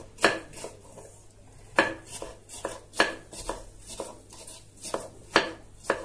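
Kitchen knife dicing cucumber on a wooden cutting board: a dozen or so sharp knocks of the blade against the board at an uneven pace, about two a second.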